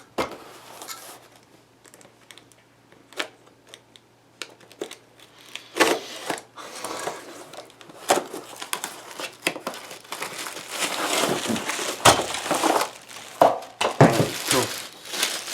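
Packaging being unwrapped by hand, crinkling and tearing. A few scattered small clicks come first, then dense crinkling with sharp crackles from about six seconds in.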